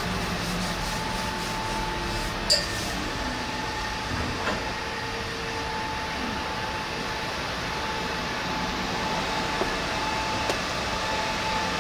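Steady hum of workshop machinery and ventilation, with a faint steady whine over it. There is one sharp knock about two and a half seconds in and a softer one a couple of seconds later.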